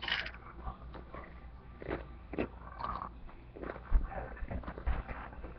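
A person biting and chewing a cheeseburger close to the microphone, irregular wet mouth noises, with a sharp low thump about four seconds in.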